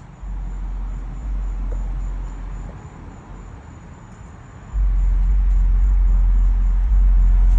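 Wind buffeting a phone's microphone: a low rumble coming in two gusts, the second, starting about five seconds in, the louder.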